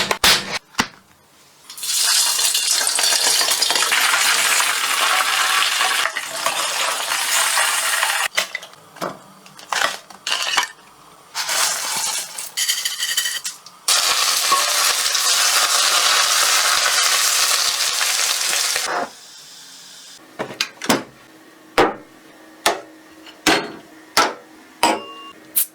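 Kitchen food-preparation sounds: two long spells of steady hiss, with clinks and taps of utensils and dishes between them and after them.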